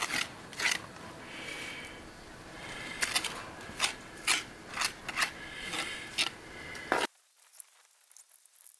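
A hand tool scraping and scratching in the mortar joints of a rubble stone wall, part of repointing it with lime, in sharp irregular strokes over a steady hiss. About seven seconds in the sound drops suddenly to a much quieter stretch of faint soft taps.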